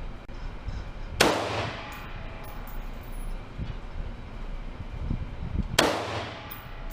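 Two single gunshots from a shoulder-fired rifle with a red dot sight, about four and a half seconds apart, each echoing and fading slowly.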